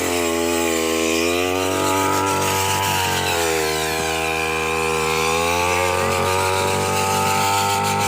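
Small two-stroke brush cutter engine running steadily at speed, its pitch sagging and recovering a few times, with a sharper dip about three seconds in.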